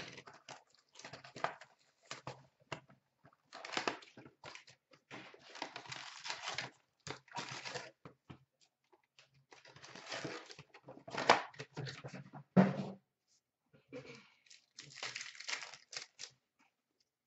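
Hands tearing open a hockey card hobby box and handling the packs inside: irregular rustling, crinkling and tearing of wrapper and cardboard, with a sharp knock about three-quarters through.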